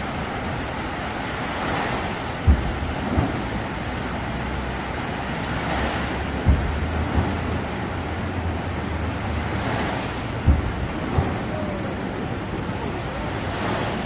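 Dancing water fountain's jets rushing and splashing down into the basin, a steady loud spray. It swells about every four seconds, and each swell is followed by a low thump.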